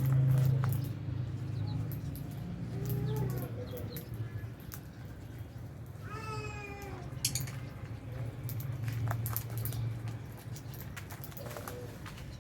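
Aviary lovebirds and budgies chirping and calling, with many short sharp chirps, one longer drawn-out call about six seconds in, and a low hum that swells and fades.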